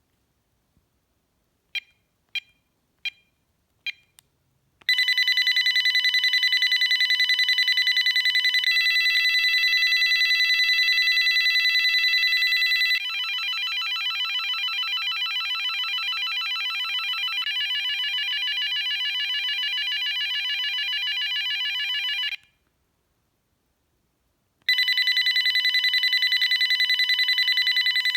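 VTech IA5863 phone handset stepping through its electronic ringtones: several short beeps, then a loud ringtone of high electronic tones. It switches to a different pattern three times, about every four seconds, breaks off for about two seconds, and starts again near the end.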